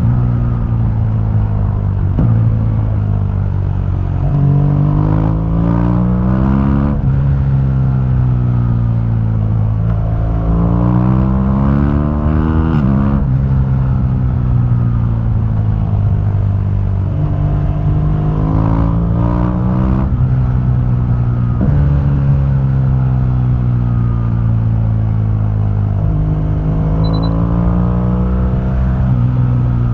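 2015 BMW R1200GS liquid-cooled boxer twin on its stock exhaust, ridden under acceleration. The engine note climbs and then drops sharply with each upshift, about five times, over steady wind and road rumble.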